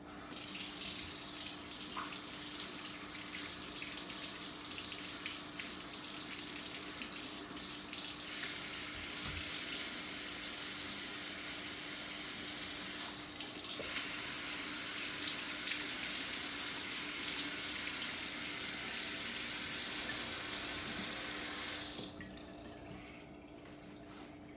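Water running from a tap into a sink during hand washing. It comes on about half a second in, runs louder after about eight seconds, and is shut off suddenly a couple of seconds before the end.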